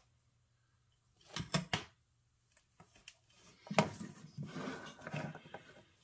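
Faint handling of small plastic circuit cards on a work surface: two or three sharp clicks about one and a half seconds in, then a run of small taps and clicks near the end as the snap connector cards are picked up.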